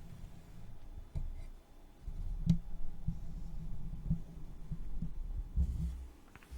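Ear-cleaning sounds: an ear pick digging and scraping close to the microphone, a low muffled rubbing broken by soft clicks. There is a short lull about one and a half seconds in, and the sharpest click comes about two and a half seconds in.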